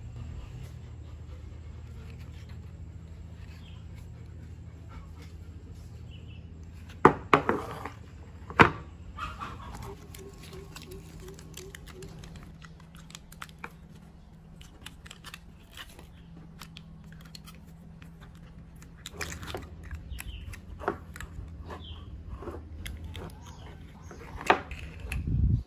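Aluminium foil crinkling as hands handle it and press it onto a plastic part, with a few sharp clicks and knocks, the loudest about seven to nine seconds in, over a steady low hum.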